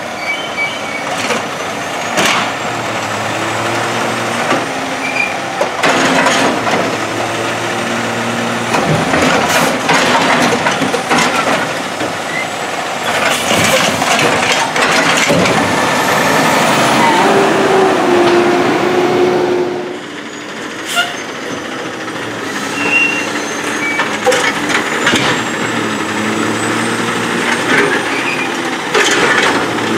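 Heil Durapack 7000 automated side-loading garbage truck working at the curb: its diesel engine running and revving for the hydraulic gripper arm as it reaches out, grabs and lifts a cart, with sharp air-brake hisses in between. The engine is loudest through the middle and eases off about two-thirds of the way through.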